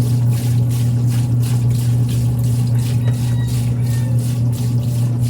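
Washing machine motor running under test with a loud, steady mains hum, driving the wash plate through its freshly tightened belt, with a hiss that pulses about three times a second over it.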